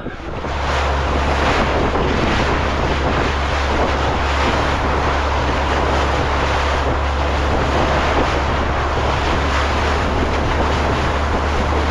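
Steady wind buffeting the microphone over the rush of water along a moving fishing boat, with no sudden events.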